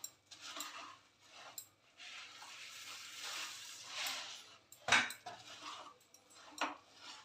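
Puffed rice being stirred and pressed into melted jaggery in a metal kadhai, giving a crisp rustling. Two sharp clinks against the pan come about five seconds in and a second and a half later.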